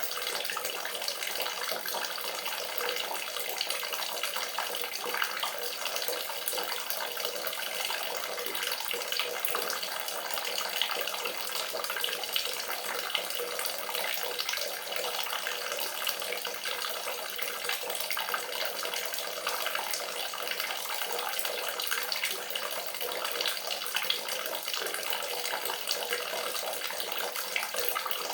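Water running steadily, a continuous splashing rush full of small droplet ticks, with no change in flow.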